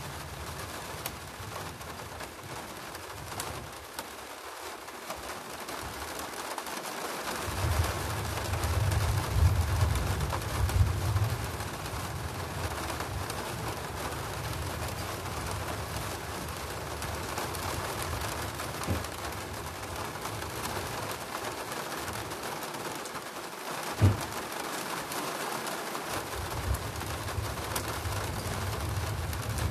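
Steady rain during a thunderstorm, with thunder rumbling low, swelling about eight seconds in and again near the end. A single sharp tap about three-quarters of the way through.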